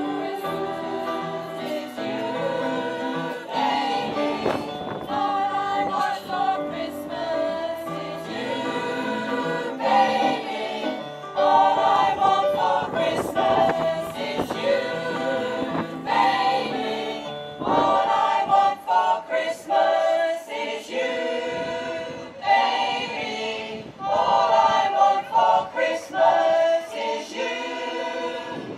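Community choir singing a Christmas song in parts.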